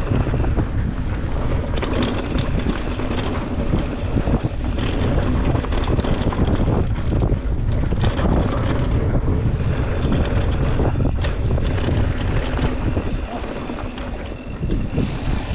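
Wind rushing over the microphone of a mountain-bike rider's camera on a fast downhill run, with the tyres rolling over a rough dirt trail and the bike rattling in many short knocks.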